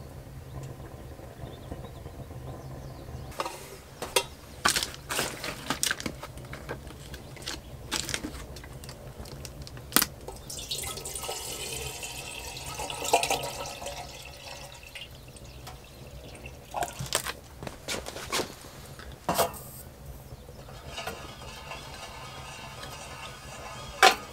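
Water poured from a large plastic bottle into a small metal kettle, running for a few seconds about midway. Before and after the pour come scattered knocks and clunks of the kettle and bottle being handled, with a sharp loud metal knock near the end as the kettle is set on the stove top.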